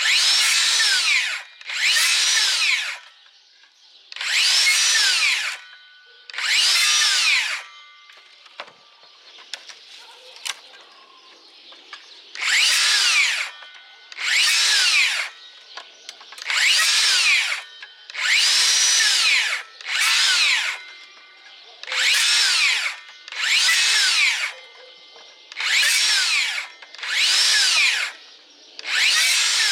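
DeWalt DCS578 60V FlexVolt cordless circular saw run in about a dozen short bursts. In each, the motor whines up in pitch and the electric brake drops it back to a stop within about a second. There is a pause of a few seconds with only faint clicks about a third of the way in.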